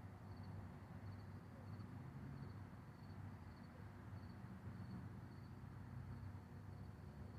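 Faint crickets chirping in short pulses about twice a second, over a steady low rumble.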